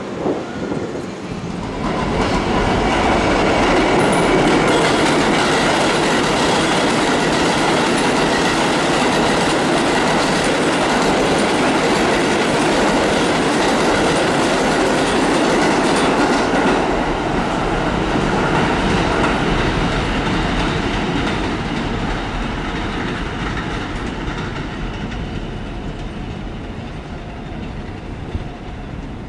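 R188 subway train running along the track, heard from on board: wheel and rail noise with the clickety-clack of rail joints. It grows louder about two seconds in and eases off gradually after about seventeen seconds.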